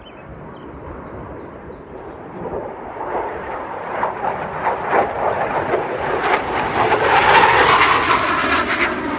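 F-16 fighter jet engine noise building steadily as the jet approaches, ragged and crackling, and loudest near the end.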